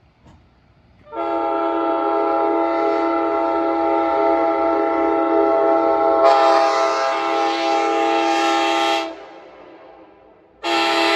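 Nathan Airchime K5LA five-chime locomotive air horn, fitted with new diaphragms and cushions, sounding its chord in a long blast of about eight seconds. The blast turns brighter and harsher partway through, then dies away. A second blast starts just before the end.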